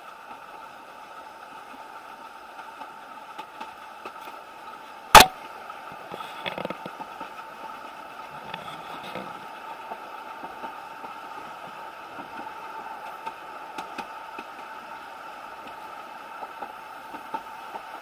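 Steady running noise of a moving railway carriage. One very loud sharp knock comes about five seconds in, with a few lighter clicks over the next few seconds.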